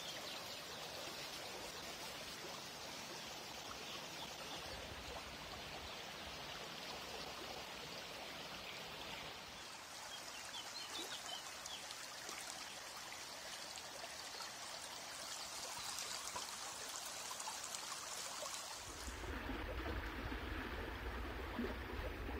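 Water running steadily along a levada, a narrow irrigation channel, with a brighter rush from about halfway through. In the last few seconds, music with a heavy bass comes in over it.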